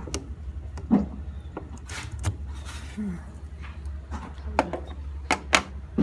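Sharp plastic clicks and taps as the clogged inlet filter screen is worked out of a Samsung washing machine's water inlet valve, the loudest two close together near the end, over a steady low hum.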